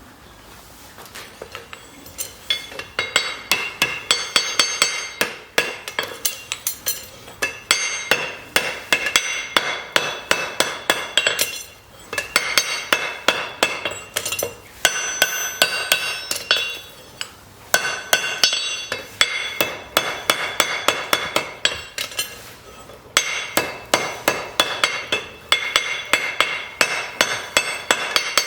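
Farrier's hammer striking metal in rapid runs of ringing blows, broken by a few short pauses.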